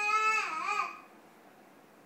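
A high voice holding a long, drawn-out peekaboo call ("kuku") that wavers and falls away just under a second in, followed by near silence with only room tone.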